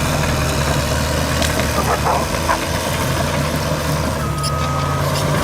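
Heavy earthmoving machine's engine running steadily at low revs. Near the end a steady high beep, like a backup alarm, starts.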